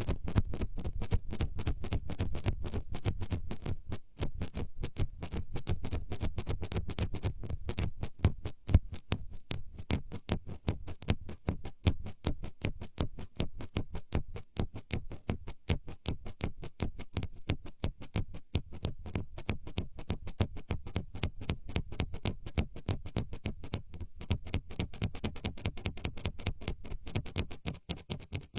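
Fast, dense run of close-miked ASMR trigger taps and scratches on a microphone, many small clicks a second without a break.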